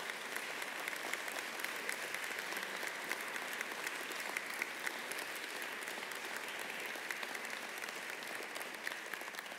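Congregation applauding in a church: steady clapping from many hands that tails off near the end.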